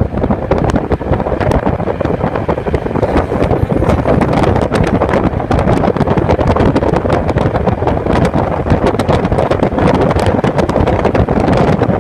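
Strong wind buffeting the phone's microphone, a loud, steady rumbling rush broken by constant crackling gusts.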